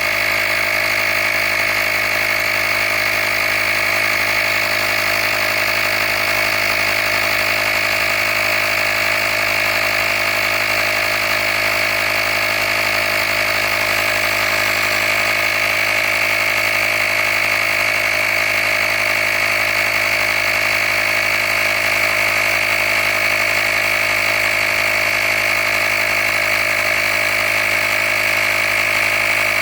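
Handheld air compressor running steadily as it pumps up a flat car tyre toward its 35 psi set point: an even motor drone with a steady high-pitched tone over it.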